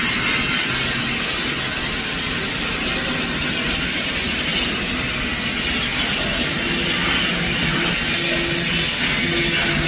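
TIG welding arc hissing steadily, a continuous even noise with a faint low hum under it.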